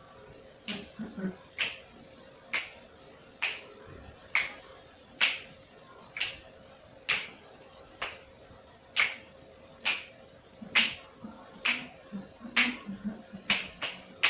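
Finger snaps keeping a steady beat, about one a second, coming closer together near the end, over a faint steady hum.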